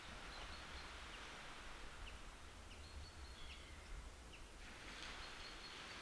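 Small waves softly washing onto a sandy beach. The wash eases off mid-way and swells again near the end, with faint, scattered bird chirps and thin high whistles.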